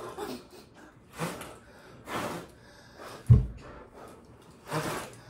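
Hard puffs of breath blowing ping pong balls across a row of cups, four short blows, the loudest about three seconds in with a low thud.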